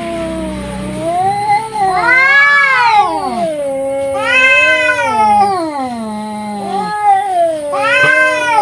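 Two domestic cats caterwauling at each other in a fight standoff: long, wavering yowls that rise and fall in pitch, swelling louder three times.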